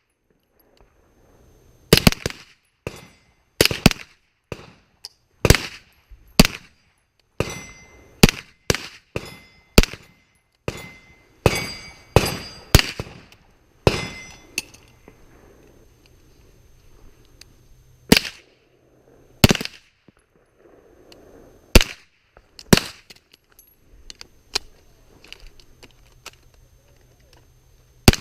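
Gunshots on a range in a timed shooting string: about twenty sharp shots in ones and quick pairs over some twenty seconds, spacing out after about 14 seconds, with a pause before one last shot near the end.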